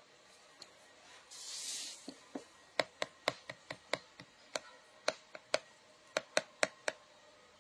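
A quick rustle, then a run of about seventeen sharp taps or clicks at an uneven pace, roughly three or four a second, stopping about seven seconds in.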